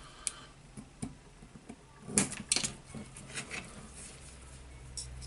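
Metal tools and small steel parts of a rotary hammer drill's clutch clinking and tapping during hand disassembly. A few scattered clicks, the loudest cluster about two seconds in.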